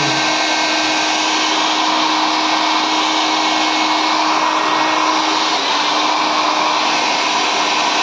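Philips 1000-watt hair dryer running steadily and blowing at high pressure: a loud, even rush of air with a steady motor hum and whine.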